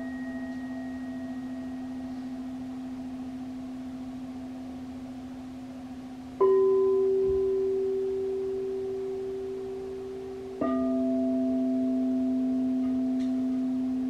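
Crystal singing bowls struck with a mallet, their pure tones ringing and slowly fading. A low bowl's tone rings on from before, a higher bowl is struck about six seconds in, and the low bowl is struck again about ten and a half seconds in, so the tones overlap.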